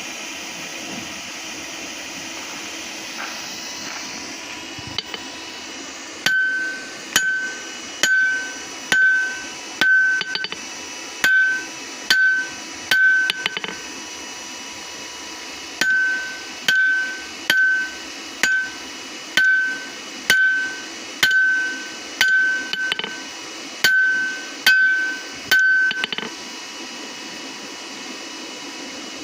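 Forging hammer striking hot steel on an anvil, about one blow a second, each blow ringing, in two runs with a short pause between them, as a ball peen hammer head is drawn out into a small axe. A steady hiss runs underneath, alone for the first few seconds and after the last blow.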